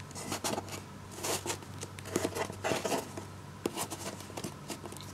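Trading cards being handled: an irregular run of short clicks and brief slides as cards are picked up from a pile and shuffled through.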